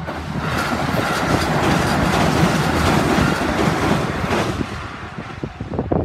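A limited express train passing a level crossing: a rush of wheel and rail noise that swells to a peak about two to three seconds in, then fades away.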